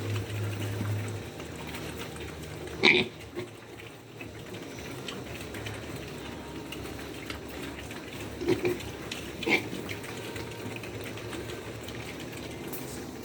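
Hungry pigs grunting and squealing in their pen, with a few short, sharp, louder sounds about three seconds in and twice around eight to nine and a half seconds.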